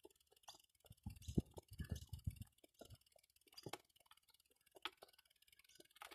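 Faint, uneven low rumbles and a few sharp clicks on a handheld camera's microphone, carried on a walk.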